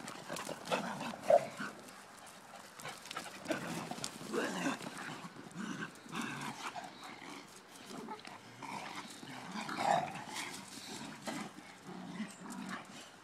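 Several dogs in rough play, making repeated short growls and barks, loudest about a second in and again near ten seconds.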